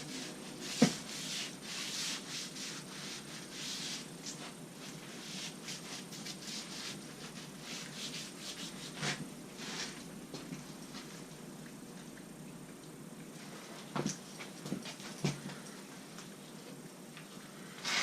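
Repeated rubbing strokes for about ten seconds, with a sharp click about a second in, then a few separate light knocks.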